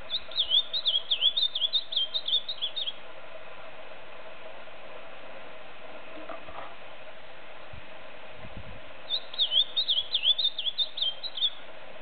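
Male ultramarine grosbeak (azulão, Cyanocompsa brissonii) singing: two songs of about three seconds each, each a fast string of short sliding whistled notes, one at the start and one near the end.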